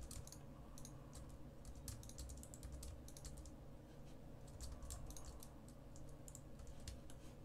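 Faint, irregular computer mouse clicks and keyboard key presses over a low steady hum, the sound of selecting edges and pressing shortcut keys one after another.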